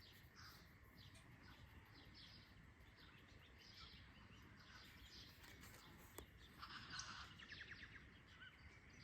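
Faint birdsong at dawn: many birds chirping and calling. A rapid trill comes about seven seconds in.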